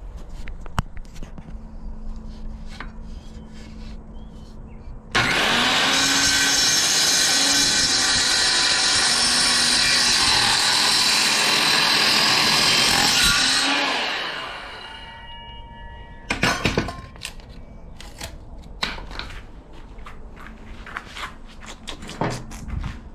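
Power saw cutting through a wooden desk leg: it starts abruptly about five seconds in, runs steadily for about nine seconds, then winds down as the blade coasts to a stop. Scattered knocks of wood being handled before and after the cut.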